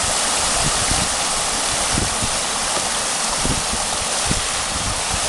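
Rushing water running through an eroding roadside gully: a steady hiss, with a few irregular low thumps.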